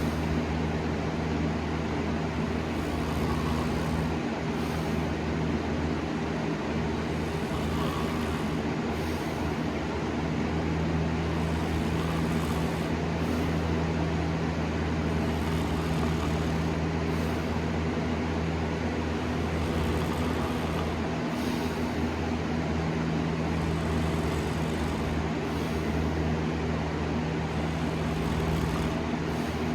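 A steady low mechanical hum with a few constant low tones, unchanging throughout.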